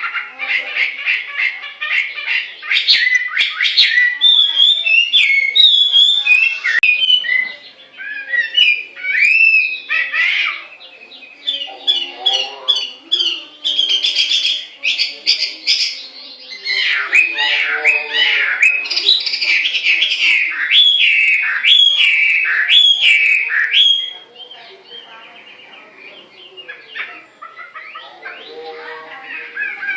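Hwamei (melodious laughingthrush) singing: loud, clear, varied whistled phrases of rapid repeated notes and slurred rising and falling glides, broken by short lulls. The song turns softer for the last several seconds.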